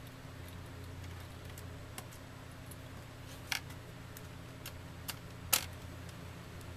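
Sharp plastic clicks and knocks from a Dell Inspiron 1420 laptop's base being handled, lifted and turned over. There are about half a dozen separate clacks, the loudest about three and a half and five and a half seconds in, over a steady low hum.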